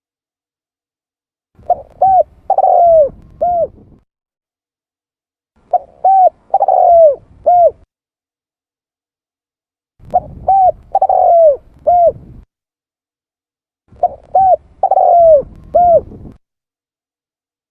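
Spotted dove (tekukur) cooing: four repeated coo phrases about four seconds apart. Each phrase is four or five short notes, the middle one longer and falling in pitch.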